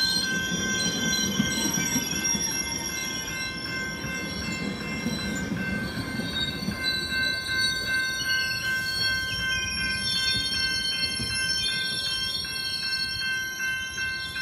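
COASTER commuter train's bilevel passenger cars rolling past at close range: a steady low rumble of wheels on rail, with a high-pitched, sustained wheel squeal over it.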